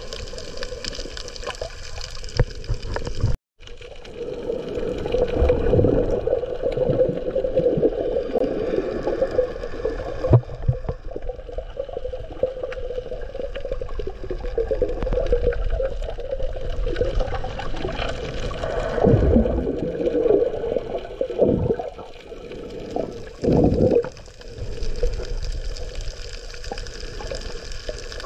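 Muffled water sloshing and gurgling, recorded with the camera under water, with a few louder surges and a brief cut-out about three seconds in.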